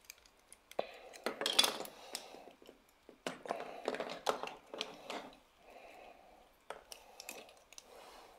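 Hard plastic parts of a Shinkalion Z Dark Shinkalion transforming toy robot being handled and fitted together, making irregular small clicks and clacks as the last pieces are snapped on.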